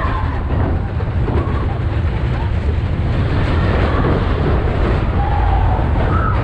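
Wind buffeting the microphone of a camera riding on the Big Thunder Mountain Railroad mine-train roller coaster, over the steady low rumble of the train running along its track. A rider's voice is heard briefly near the end.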